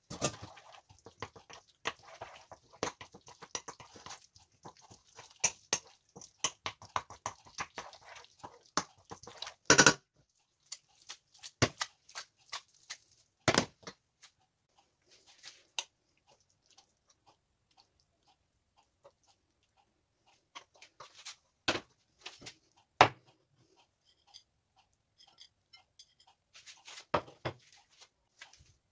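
Wooden spoon stirring cooked pasta into a thick, sticky sauce in a wok: wet squelching and scraping, dense for about the first ten seconds, then sparse, with sharp knocks of the spoon against the pan now and then.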